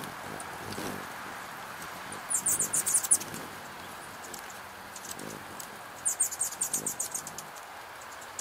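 Hummingbirds giving two bursts of rapid, high-pitched chattering, each about a second long, one about two seconds in and one about six seconds in, over a steady hiss of rain.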